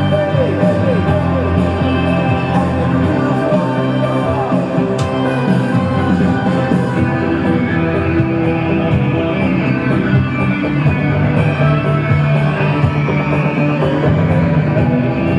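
Background rock music with electric guitar and some singing.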